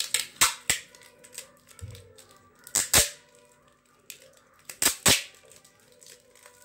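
Adhesive tape being pulled off the roll in short, sharp rips: two quick ones at the start, a longer one about three seconds in, and two more close together about five seconds in.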